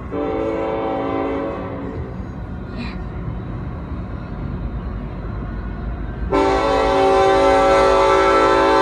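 Union Pacific locomotive's Nathan K5LA five-chime air horn sounding: a chord that starts right away, louder for about a second and a half and then held softer, then a much louder long blast from about six seconds in, over a low rumble.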